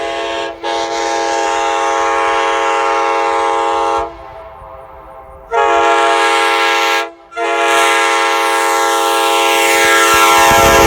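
Nathan Airchime K5LA five-chime locomotive horn blowing its chord in loud blasts. It sounds from the start with a brief break under a second in, stops for about a second and a half around four seconds in, then sounds again with a short break just after seven seconds and holds to the end.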